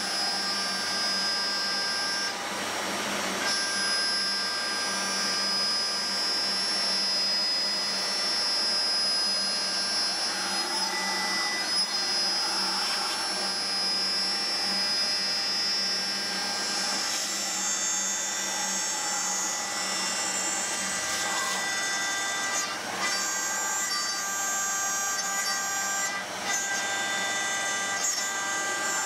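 Homemade CNC milling machine's spindle running with an end mill cutting a metal plate: a steady high whine over cutting noise, with a few brief sharp knocks in the second half.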